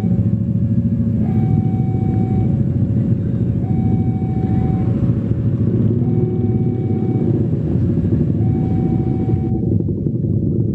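Train passing with a heavy, steady rumble, over a two-note warning signal that alternates high and low about once a second. Near the end the higher sounds cut off abruptly.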